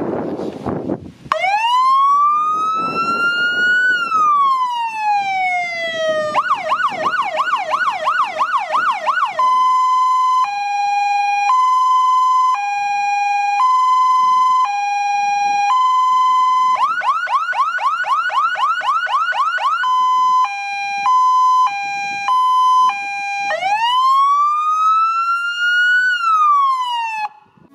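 Fire engine siren on a MAN truck cycling through its tones: a slow wail rising and falling, then a fast yelp of about three sweeps a second, then a two-tone hi-lo, the yelp again, a quicker hi-lo, and a final wail. A short burst of noise comes just before the siren starts.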